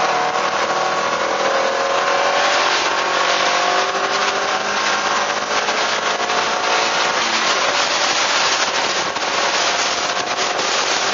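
Suzuki Swift Sport's four-cylinder engine running on track, its note slowly dropping in pitch over several seconds, under heavy wind and road rush on the onboard camera's microphone.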